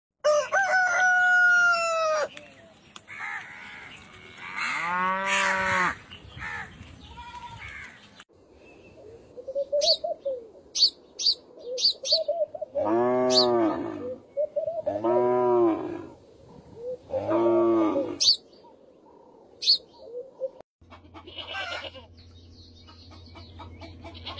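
Farmyard animal calls, chickens among them: a string of drawn-out calls, three alike about two seconds apart near the middle, with short high chirps between them. A steady low hum takes over near the end.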